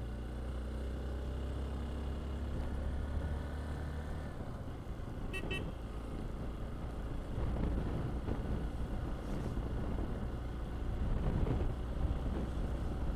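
Motor vehicle engine running steadily, then louder road and wind noise from about the middle. A short double horn beep comes about five seconds in.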